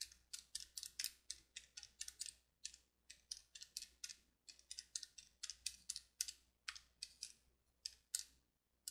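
Faint, irregular clicking of calculator buttons pressed in quick succession, several a second, as a long arithmetic expression is keyed in.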